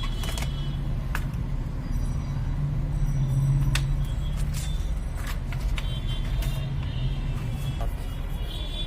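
A steady low rumble, with scattered small clicks and scrapes from handling a laptop keyboard and its tape.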